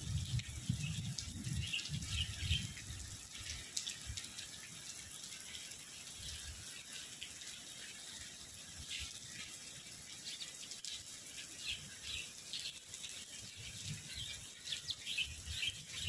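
Steady hiss of heavy rain, with small birds chirping again and again throughout. Low rumbles come in the first few seconds and again near the end.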